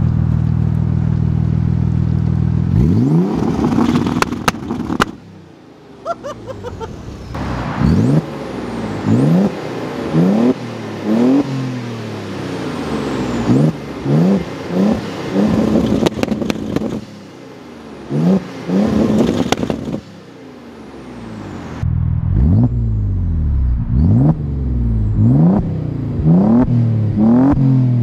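Audi B5 S4's twin-turbo V6, fitted with an XS Power full exhaust, held at a steady rev on two-step launch control for about three seconds, then revving up and cutting off abruptly. This is followed by a long series of quick throttle blips, each rev rising and falling back within about a second.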